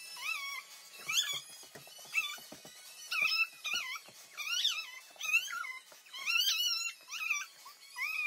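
A young girl singing a run of high, wavering "oh" notes in short repeated phrases, with a few soft thumps beneath.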